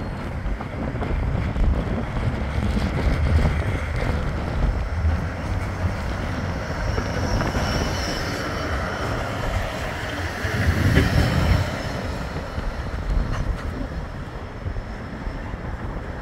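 Bombardier Flexity 2 tram running past close by on its rails, with a faint high whine about halfway through as it goes by. Wind rumbles on the microphone throughout.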